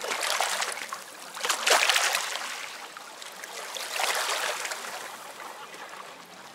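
Small sea waves lapping and washing over rocks and stones at the shoreline, in three swells, the loudest about two seconds in.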